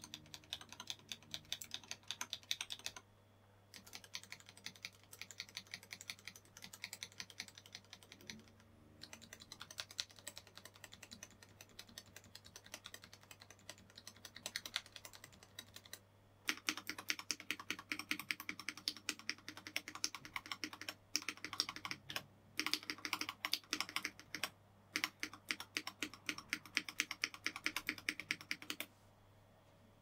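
Rapid typing on a CIY Tester 84 mechanical keyboard kit, fingers pressing its red-housed switches, most of them bare without keycaps: fast runs of clacks broken by short pauses. The clacking turns louder and fuller a little past halfway, and stops shortly before the end.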